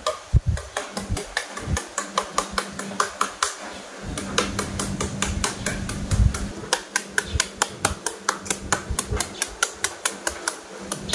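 Kitchen knife chopping rapidly and rhythmically into a peeled, half-ripe green papaya held in the hand, about four sharp taps a second, as the flesh is scored into strands for shredding.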